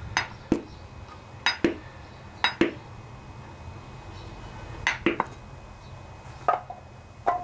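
About nine short, sharp metallic clinks, unevenly spaced and several in pairs, from parts being oiled inside the open crankcase of a Briggs & Stratton OHV Intek engine.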